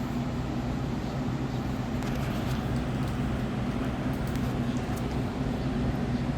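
Steady low machine hum with a few faint light clicks.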